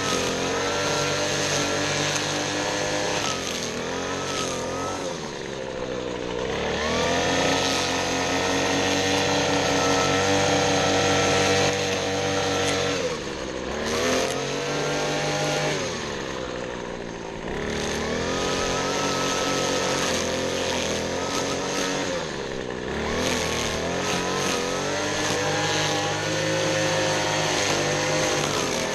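Small gasoline engine of lawn-care power equipment running at high throttle, easing off and speeding back up about four times.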